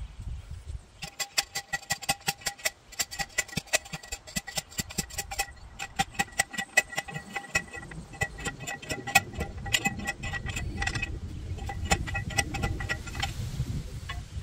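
Manual post driver pounding a steel T-post into the ground: a fast series of sharp metal clangs, each ringing on with a steady tone. There are two short breaks in the pounding, and it stops about a second before the end.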